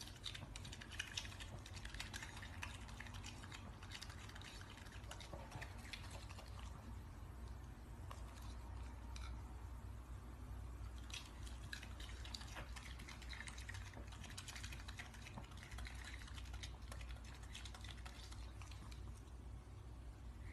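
Raccoon eating juicy fruit: faint, irregular wet smacking and clicking chewing sounds over a low steady hum.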